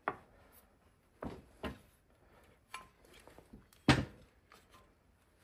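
Clinks and knocks of a Dillon RL550B reloading press's linkage parts being handled and set down on the bench: several separate sharp hits, the loudest a little under four seconds in.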